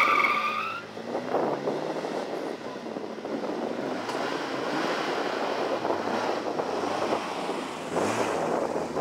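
Opel Manta sprint car launching hard from the start line: a brief tyre squeal right at the start, then its engine running at full throttle as it accelerates away down the road.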